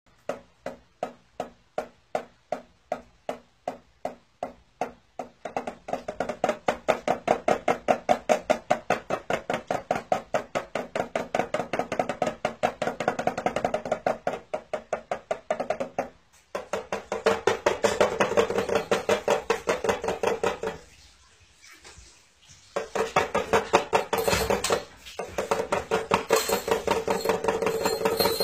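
Small toy drum with a clear plastic head being struck with drumsticks: slow single beats at first, then fast drumrolls from about five seconds in, broken by a few short pauses.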